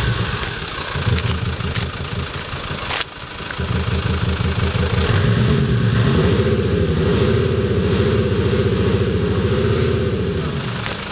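SsangYong Rexton SUV's engine and exhaust note, voiced through a JSR electronic exhaust sound generator (sound box), running and being revved up and down several times. The sound briefly drops out about three seconds in.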